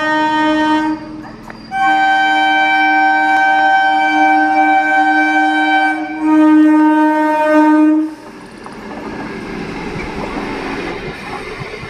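Electric multiple-unit local train sounding its horn in three long, steady blasts as it approaches: one ending about a second in, one of about four seconds, then one of about two seconds. The horn then stops, and the train rumbles past with wheel noise on the rails.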